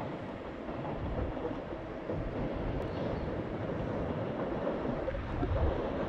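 Steady low noise of a freight train running past, mixed with wind on the microphone.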